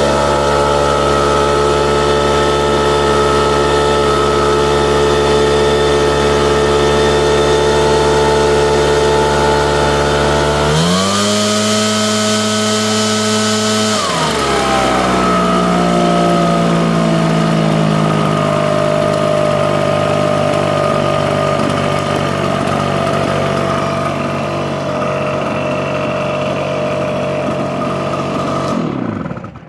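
Echo PB770H backpack blower's two-stroke engine idling steadily, revved up about eleven seconds in and held for about three seconds, then easing slowly back down to idle. It is shut off just before the end.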